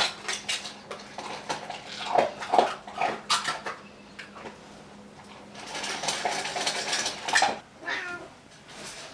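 Cats meowing while wet cat food is scooped from a tin can, with clinking and scraping of metal on the can. A few seconds of scraping noise follow in the second half.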